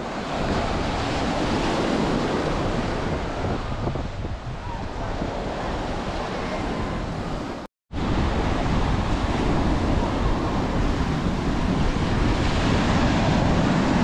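Surf washing on a sandy beach with wind buffeting the microphone in a low rumble. The sound cuts out completely for a moment about halfway through, then returns with the wind rumble stronger.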